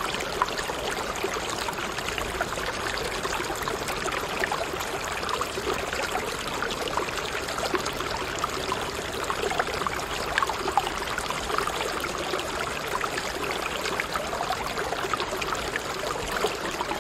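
Steady running water, like a stream, with a fine continuous bubbling.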